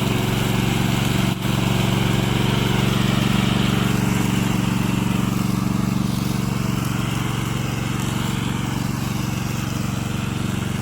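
Petrol engine of a remote-control tracked lawn mower, a Loncin 9 hp, running steadily, with a brief dip about a second and a half in.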